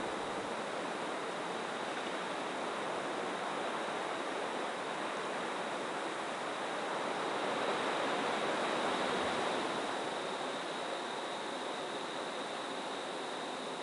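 Ocean surf breaking on the shore: a steady rushing wash of waves that swells louder for a few seconds about halfway through.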